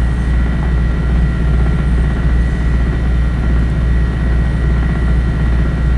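Steady low background hum and drone, unchanging throughout, with a few faint steady higher tones above it.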